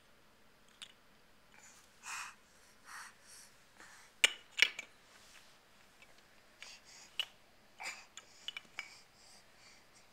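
Hard plastic stacking-toy pieces knocking and clacking together, handled by a baby. Scattered clicks, two sharp clacks a little past four seconds in the loudest, with softer scrapes and rustles between.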